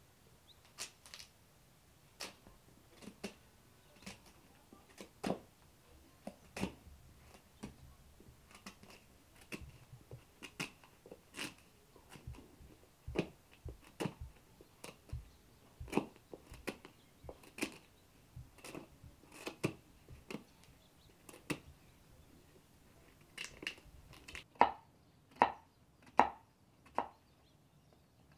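Kitchen knife cutting raw pumpkin: irregular crisp cuts and knocks of the blade, about one or two a second. Near the end, louder chops land on a wooden cutting board as the flesh is cut into cubes.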